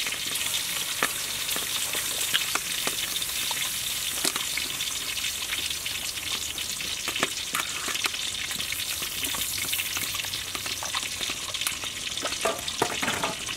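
Water at a full boil in an aluminium pot with fish pieces in it: a steady hiss with scattered bubbling pops. Near the end, a metal ladle stirs in the pot.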